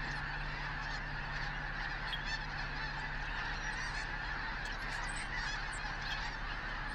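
A large flock of wintering geese calling without a break: a dense chorus of overlapping goose calls with many higher single calls standing out, over a steady low hum.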